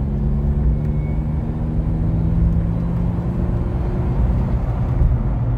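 Mercedes G-Wagon's Brabus 3.6-litre engine running steadily while driving, with low tyre and road rumble, heard from inside the cabin.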